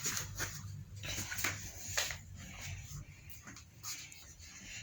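Bedsheet rustling in a series of short swishes as it is spread and smoothed over a bed.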